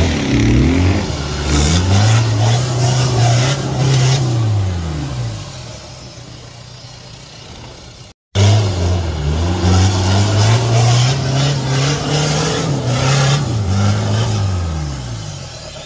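Off-road 4x4's engine revving hard under load on a rocky climb, wheels spinning on loose stone: the revs rise, hold for a few seconds and fall away, then after an abrupt cut about eight seconds in they climb and hold high again before dropping near the end.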